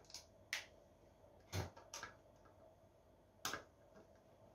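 Scattered light clicks and taps from handling the plastic housing of a Garmin Strike 4 fish finder and a small screwdriver while taking the unit apart. There are about half a dozen sharp clicks, spread out, with the loudest about one and a half and three and a half seconds in.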